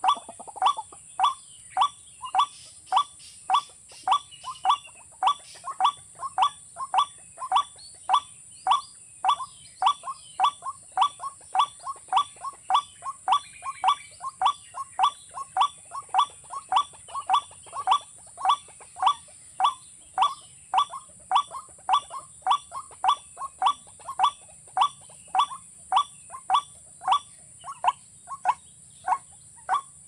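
A rail calling: one short note repeated in an even, unbroken rhythm, about two calls a second. A steady high-pitched hiss runs underneath.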